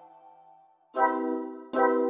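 Background music: after a brief near-silent gap, sustained keyboard chords come in about a second in and again near the end.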